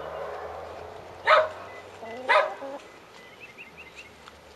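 Two short, sharp animal calls about a second apart, with faint small chirps afterwards.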